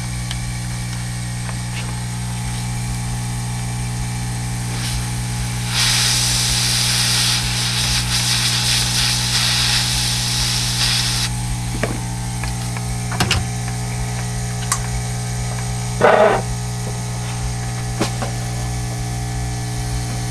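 Heat gun blowing for about five seconds, a hiss that starts and stops abruptly, shrinking heat-shrink tubing on the knob wiring. A steady electrical hum runs underneath, with a few small handling clicks.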